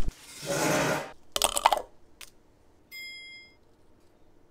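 An interior door with a metal knob being worked: a swish as the door moves, then a quick run of knob and latch clicks. A short high beep follows about three seconds in.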